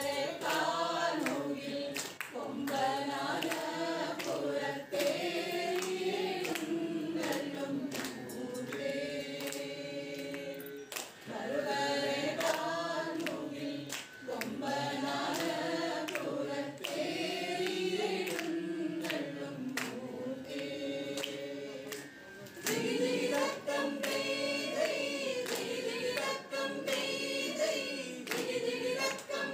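A group of voices singing a Malayalam song together in phrases, with sharp clicks throughout.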